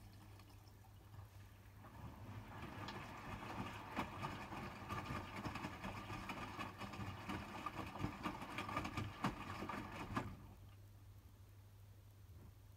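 Hotpoint WMFUG 942 washing machine drum turning during a rinse: motor running with wet bedding sloshing and knocking as it tumbles. It builds up over the first couple of seconds, runs for about eight seconds and stops abruptly about ten seconds in, leaving a low hum.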